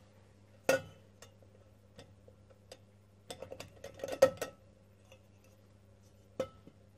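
Light metallic clicks and clinks of a brass oil can and metal parts being handled against a stopped lathe's chuck. There is a sharp clink under a second in, a quick run of clicks between about three and four and a half seconds with the loudest knock among them, and one more click near the end, all over a faint steady low hum.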